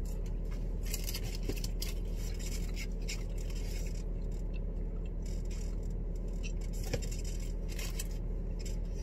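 Close chewing of crisp french fries, a scatter of small crunches and clicks, over a steady low hum in the car cabin.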